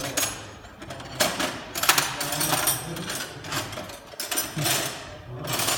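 Workshop tool noise: a string of short, harsh mechanical bursts and metal clanks, irregularly spaced.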